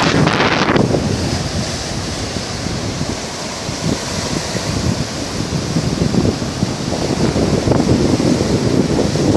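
Sea surf washing in with wind buffeting the microphone in a rough, rumbling noise. It is louder for the first second, then eases.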